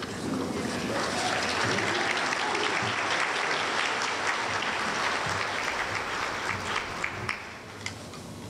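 Audience applauding, a dense spread of many hands clapping that thins out near the end.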